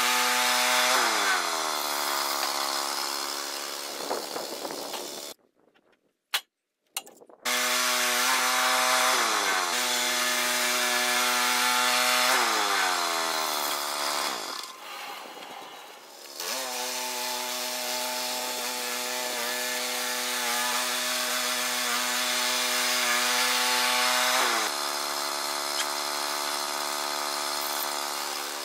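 The small gasoline engine of a Woodland Mills HM122 portable bandsaw mill running hard while the band blade cuts through a pine log, its pitch dropping and climbing back several times. The sound stops for about two seconds around five seconds in, then resumes.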